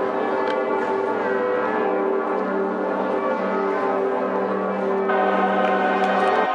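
Church bells pealing: many overlapping bell strokes ringing on and blending, with brighter tones joining about five seconds in.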